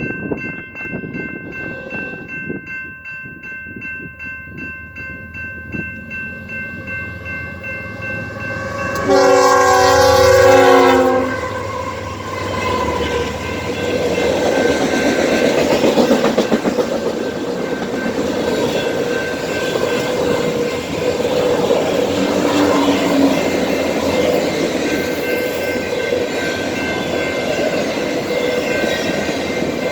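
A railroad crossing bell rings at an even rhythm, then a BNSF diesel locomotive's air horn sounds one long chord blast of about two seconds. A fast freight train of auto racks then rushes past with a steady roar of wheels on rail, while the crossing bell keeps ringing faintly underneath.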